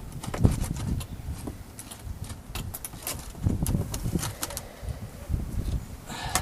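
Hands working inside a car seat to fish a headrest wire through: irregular rustling and scraping of the seat upholstery with scattered small clicks and low knocks.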